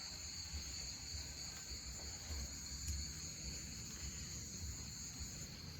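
Chorus of Amazon night insects: a continuous, even, high-pitched trilling in two steady pitches.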